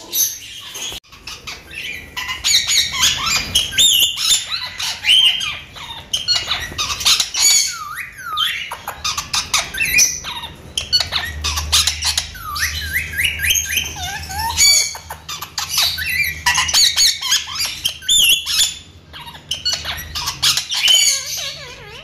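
Indian ringneck parakeet squawking over and over in quick runs of harsh calls, some of them short rising sweeps.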